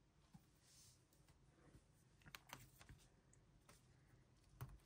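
Near silence with a few faint, light clicks and taps, a small cluster about halfway through, from handling photocards in a binder.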